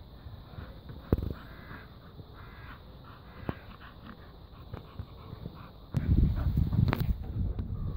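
Eurasian magpie chattering, a harsh repeated rattle. About six seconds in, a much louder low rumbling starts as the phone is moved about.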